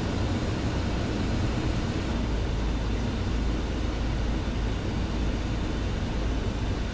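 Steady flight-deck noise of a Boeing 737 on approach with landing gear down and flaps extended: a continuous rush of airflow over a low rumble, the rumble growing a little about two seconds in.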